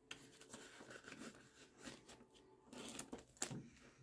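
Faint rustling and crinkling of a clear plastic zip binder pouch being handled as a paper dollar bill is slid into it.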